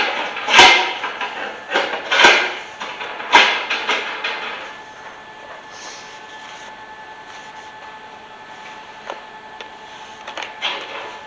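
A few loud knocks and clanks with a short ring after each, typical of steel gate parts being handled and set in place: four strikes in the first four seconds, then quiet, then one more near the end.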